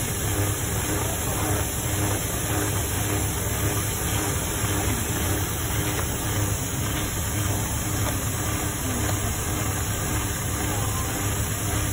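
Electric motor of a bench leather-working machine in a boot workshop, running steadily with an even low hum and a faint higher drone.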